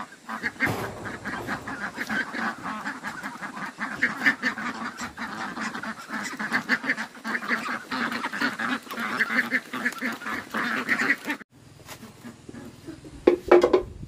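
A flock of farm poultry calling continuously, many short calls overlapping in a rapid chatter. It cuts off abruptly about eleven seconds in, and near the end there are two brief louder sounds.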